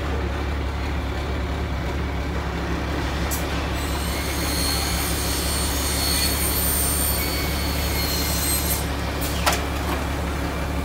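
Crane truck's diesel engine running steadily. A high whine joins in about four seconds in and stops some five seconds later, and there are a couple of sharp clicks near the end.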